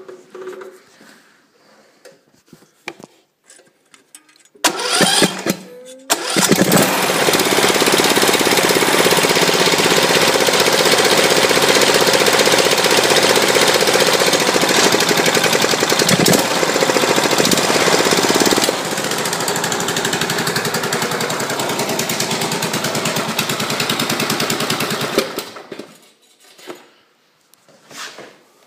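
Briggs & Stratton Intek 15.5 HP OHV single-cylinder 500 cc mower engine starting for the first time with no choke. After a short burst about five seconds in, it catches and runs steadily, drops a little in loudness after about nineteen seconds, then stops near the end.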